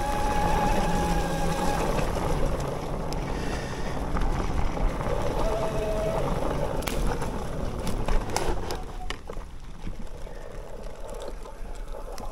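Bafang BBSHD mid-drive electric motor whining under power over wind and trail noise. Several knocks come through around the seventh to ninth second, and after that the motor whine eases off and the sound gets quieter.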